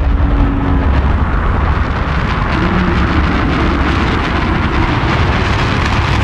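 Large rocket's engines firing at liftoff: a loud, steady rumbling roar with heavy low bass.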